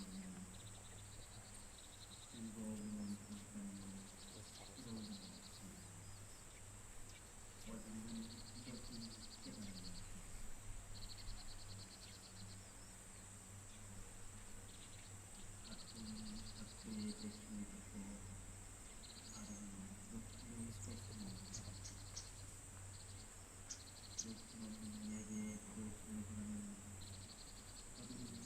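Crickets chirping in short pulsed trills, with a steady high insect drone under them. In between, a faint low voice chants prayers in phrases of a second or two.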